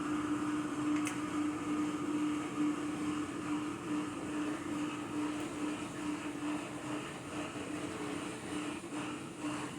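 A steady mechanical hum with a constant low tone that wavers slightly.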